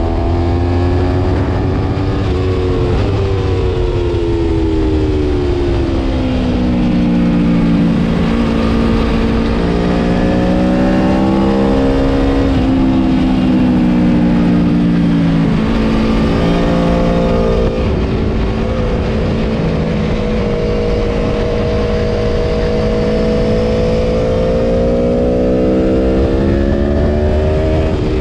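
Aprilia Tuono V4 Factory's V4 engine running hard on a racetrack. Its pitch falls over the first several seconds, shifts in a few abrupt steps through the middle as gears change, then climbs slowly and steadily through the last ten seconds under acceleration, with wind rushing past.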